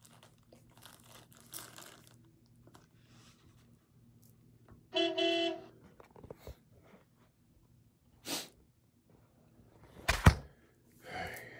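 A short, steady, buzzy tone lasting about half a second, about five seconds in, then a knock and a loud thump from the phone being picked up and moved, the thump being the loudest sound.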